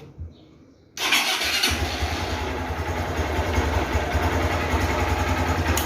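Honda Titan 150's single-cylinder four-stroke engine is started on the electric starter about a second in, then catches and idles steadily. The starter works again now that the corroded start-button wiring connector is making contact.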